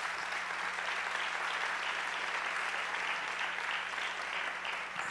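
Audience applauding: steady clapping from a seated crowd of many people.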